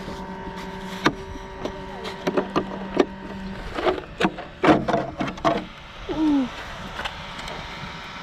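Clicks and knocks from hands working on a small RC car, a hard plastic body being handled, clustered in a quick run about halfway through. A steady low hum sounds for the first three and a half seconds, then stops.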